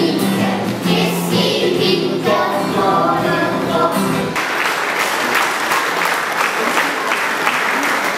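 Children's choir singing, breaking off about four seconds in, followed by audience applause.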